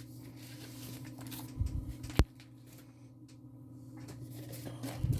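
Faint handling noises: a dull bump and a single sharp click about two seconds in, then light rustling, over a steady low hum.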